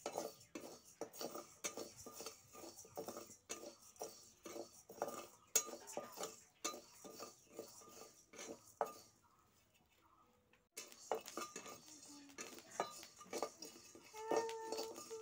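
Flat metal spatula scraping and knocking against an iron kadhai as parboiled rice is stirred and dry-roasted for puffed rice, in irregular strokes about two or three a second. The stirring pauses for a couple of seconds a little past the middle, then resumes.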